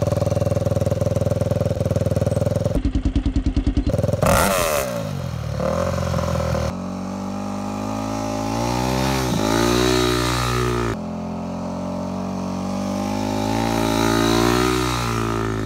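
A Yamaha YZ250F dirt bike's single-cylinder four-stroke engine idles, then revs and pulls away. It runs on through the gears with its pitch rising and falling, growing louder as it comes past near the end.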